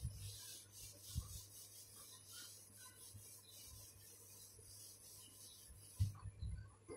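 Handwriting: a pen scratching across the page in a run of short, irregular strokes, with a few soft low knocks, the loudest about a second in and near the end.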